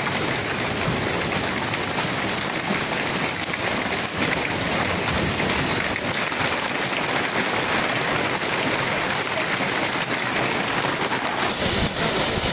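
Heavy rain pouring down in a dense, steady hiss; the sound shifts abruptly near the end.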